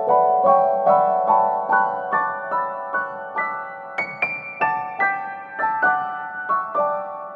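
Background piano music: a gentle melody of single struck notes, several a second, climbing to a high note about four seconds in and then stepping back down.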